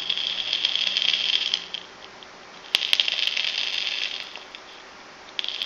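E-cigarette atomizer's 0.6-ohm coil being fired, crackling and sizzling as the e-liquid vaporises, in three pulls of about a second and a half each, the last starting near the end.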